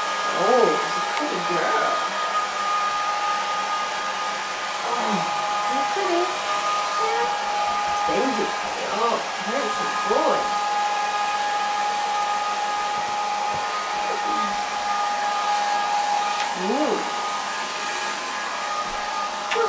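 Handheld hair dryer blowing steadily, a continuous rushing hiss with a steady motor whine. Short whines rising and falling in pitch come now and then over it, most between about eight and eleven seconds in.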